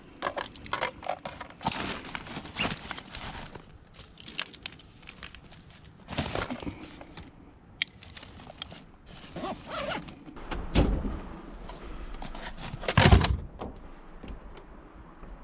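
Parts of a scrap appliance being handled and pulled loose by hand: scattered clicks, rattles and knocks, with two heavier thuds a couple of seconds apart in the second half.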